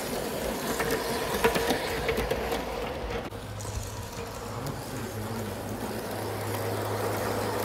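Bachmann large-scale James model train running on the track: the electric motor and gears hum steadily as the wheels roll along the rails, with a few light clicks. A deeper steady hum sets in about three seconds in.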